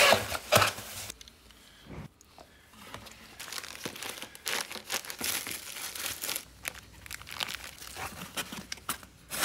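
Cardboard mailer box being folded and handled, with packing material crinkling as it is pushed into the box. Sharp rustles in the first second, a quieter stretch until about three seconds in, then steady irregular crinkling and rustling.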